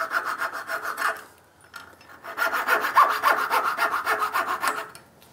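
Coping saw cutting out the waste between dovetail tails in a wooden board, in quick, even back-and-forth strokes. It stops for about a second after the first second, then saws again and stops shortly before the end.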